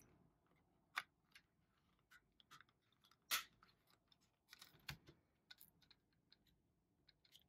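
Faint plastic clicks and taps from a two-disc 4K Ultra HD Blu-ray case: a disc pressed back onto its centre hub and fingers working at the other disc to pry it off its hub, which holds it tightly. The sharpest clicks come about a second in and a little after three seconds.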